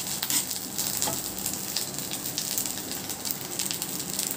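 Sesame rice being stirred in a hot oiled pan, with a steady light sizzle and a few short scrapes of the spoon against the pan.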